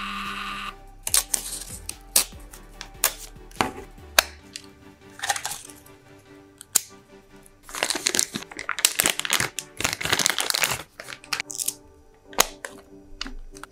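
A mini thermal printer's feed motor hums and stops just under a second in. Then come handling sounds: sharp plastic clicks and snaps as the printer's lid is opened and the thermal paper roll is taken out, and a stretch of rustling and crinkling as the paper rolls are swapped.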